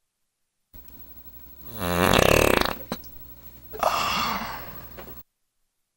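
A long rattling body noise from a person, falling steeply in pitch, about two seconds in, followed a second later by a shorter breathy, hissing sound. It comes after a brief dead silence and over faint hiss.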